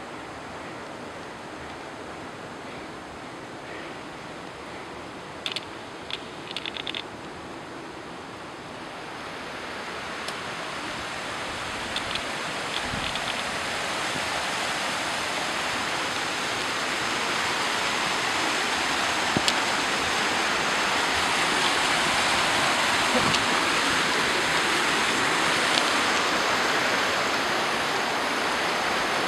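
Rushing water of a stream by a limestone cave mouth, a steady hiss that grows louder over the first half and then holds. A few short clicks come about six seconds in.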